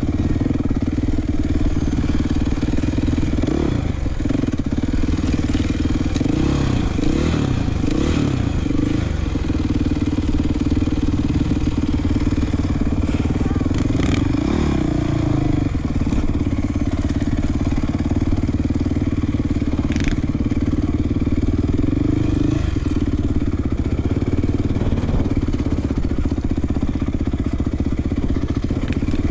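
Dirt bike engine running steadily. Other motorbike engines rev up and down several times in the first third and again about halfway through.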